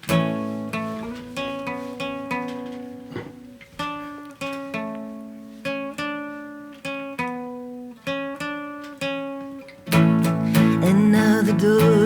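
Guitar playing a clean, ringing intro figure of plucked notes and chords, each decaying before the next; about ten seconds in the full band with drums comes in, louder and denser.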